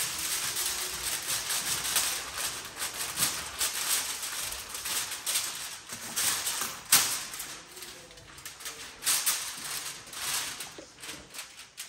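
Aluminium foil crinkling and rustling as sheets are spread out and handled, with irregular crackles and one sharper crackle about seven seconds in.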